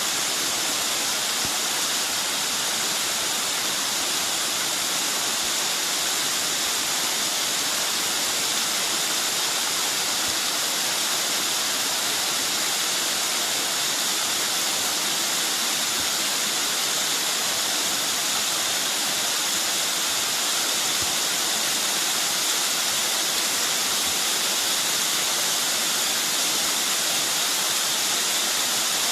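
Mountain stream water rushing steadily over rocks, an even, unbroken hiss of falling water.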